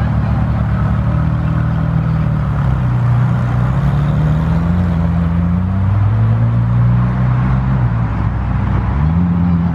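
Supercar V8 engines running at low revs: a Ferrari 458 Speciale drives slowly past and away, and a McLaren Senna rolls in. The engine note drifts gently up and down and steps up in pitch near the end.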